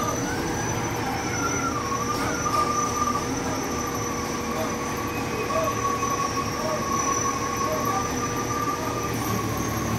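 A TCM FD250 heavy diesel forklift runs and drives slowly while carrying a load. Its engine gives a steady low rumble, with a wavering high whine over it.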